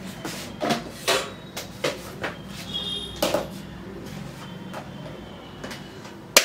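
Kitchen clatter: a run of short knocks and clinks as containers and utensils are handled and set down on the counter, over a steady low hum. A single sharp click near the end is the loudest sound.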